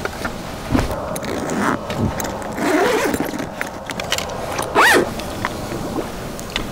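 Fishing gear being set up by hand: clicks, knocks and scrapes as a metal rod holder frame is handled and fitted, with rustling and a few short squeaks, the loudest just before five seconds in.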